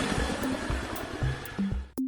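Helicopter rotor noise fading out over music with low bass notes, cutting off just before the end.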